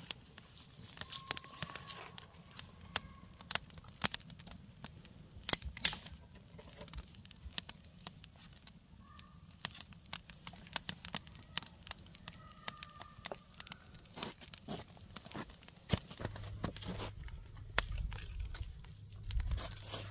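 Dry twigs and kindling cracking and crinkling: a string of irregular sharp snaps, some louder than others, typical of dry wood and tinder being handled for a campfire.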